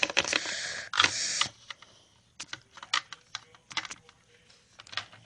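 Scattered light clicks and taps, with a short hiss ending about a second and a half in.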